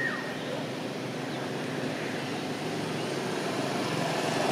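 An engine running steadily in the background, growing louder toward the end. There is a short high chirp right at the start.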